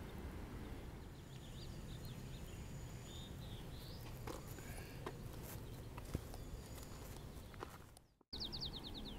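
Outdoor ambience of steady wind rumble with small birds chirping and a few soft clicks. The sound fades out near the end, then comes back with a quick, slightly falling trill of rapid repeated notes from a songbird.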